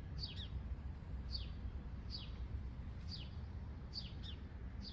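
A bird repeating a short, high call that sweeps downward, about once a second and sometimes twice in quick succession, over a steady low rumble.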